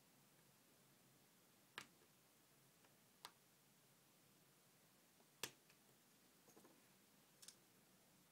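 Faint, scattered clicks of a plastic pry tool against the inside of an iPhone 4S during a battery change, in near silence. There are about half a dozen clicks, the loudest about halfway through.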